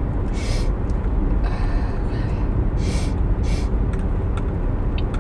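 A person taking several quick, sharp sniffs and breaths in through the nose over a steady low rumble.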